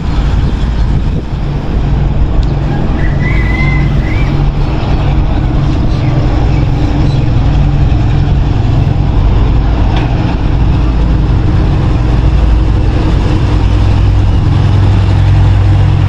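Diesel locomotive engine of an arriving passenger train, running with a steady low hum that grows louder near the end as it pulls slowly alongside. A brief high squeal sounds about three seconds in.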